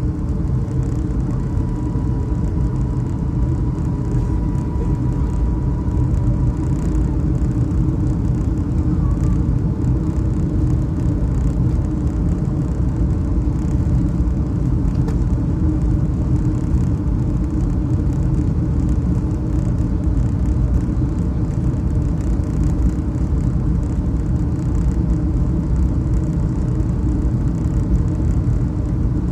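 Steady low rumble of a Boeing 757-232's engines and airflow, heard inside the passenger cabin, with a faint steady tone in the first several seconds.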